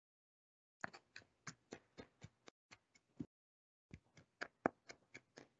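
Chef's knife mincing fresh ginger on a plastic cutting board: a faint run of light, even knocks of the blade on the board, about four a second, with a short pause partway through.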